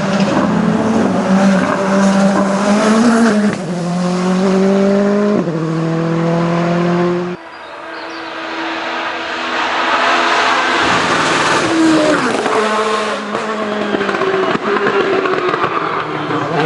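Hill-climb race car engine accelerating hard through the gears, its note climbing and dropping back at each upshift. The sound breaks off abruptly about seven seconds in; then another loud run builds up as a car approaches, with a rushing hiss before its engine note returns.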